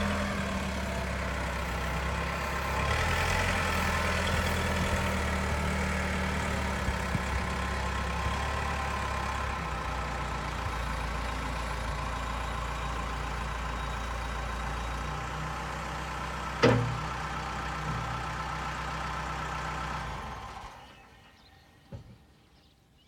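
Case 580 Super M backhoe's diesel engine idling steadily, with one sharp clunk about three-quarters of the way through. The engine then shuts off and dies away near the end.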